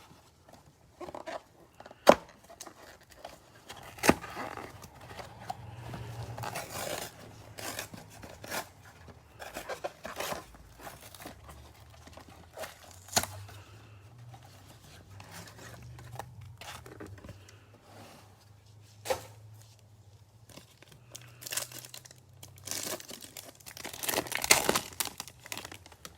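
Foil wrapper of a trading card pack being torn open and crinkled, with sharp clicks and taps from handling the packaging and cards. The loudest tearing comes near the end.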